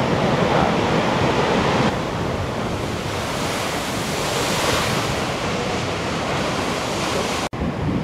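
Heavy storm waves breaking against a sea wall: a dense, continuous wash of surf and falling spray, with wind buffeting the microphone. A big breaker swells to its loudest about four to five seconds in, and the sound cuts out for an instant near the end.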